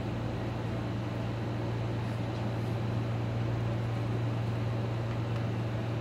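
Steady low hum with an even hiss over it: the room's background noise, with no handling sounds standing out.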